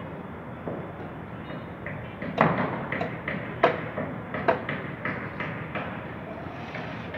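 A quick, irregular run of sharp knocks and clicks, about three a second, starting a couple of seconds in and dying away after about three seconds, over a steady background hum.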